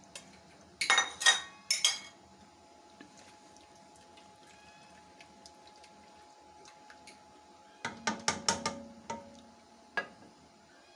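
Utensils knocking and clinking against an aluminium pressure-cooker pot while a stew is stirred. Three sharp ringing strikes come about a second in, then a quicker run of strikes around eight seconds in and a single one near the end, with a faint steady hum between them.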